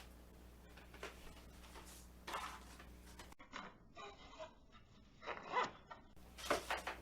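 Rustling and light knocks of gear being handled and packed into a fabric welding bag. In the middle, a few seconds of different-sounding audio hold several short pitched sounds.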